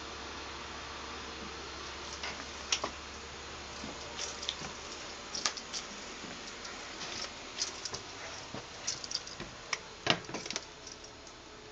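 Footsteps and handheld camera handling: scattered light clicks and taps over a steady hiss, with a cluster of louder knocks about ten seconds in.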